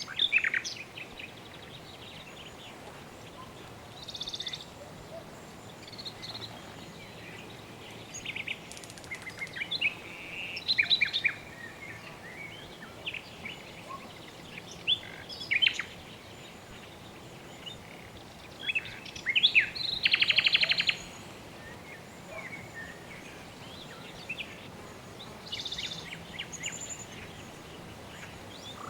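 Birds chirping and calling in short scattered phrases over a steady soft hiss of background ambience, with a brief buzzy trill about twenty seconds in.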